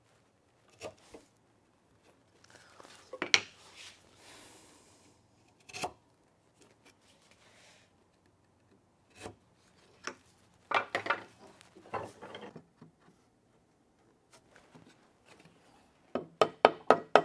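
Steel chisel paring and scraping the inside of a wooden mortise to square its corners: scattered scrapes and clicks. Near the end a quick run of wooden mallet taps, about four a second, knocking the tenon into the mortise to test the fit.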